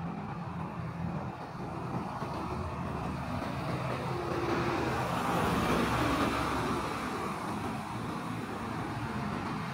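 Traffic on a busy city street: a steady wash of engines and tyres, swelling as a vehicle passes close about five to six seconds in.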